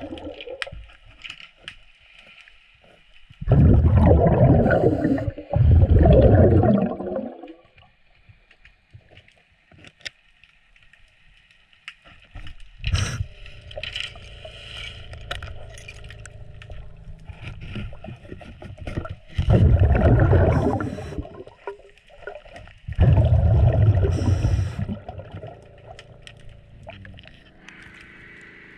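Underwater, a diver's breathing regulator exhales in bursts of bubbles about two seconds long, four times, with short clicks and light scraping in the quieter gaps between breaths.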